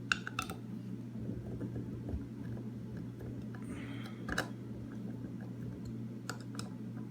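A few faint, sharp metallic clicks from handling a Master Lock No. 3 padlock and its key while locking it back up: a small cluster just after the start, one about four seconds in and two near the end, over a steady low hum.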